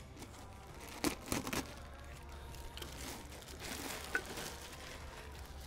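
Clear plastic bag crinkling and rustling as a new oil filter is pulled out of it by gloved hands, with a few sharp rustles about a second in and softer rustling later.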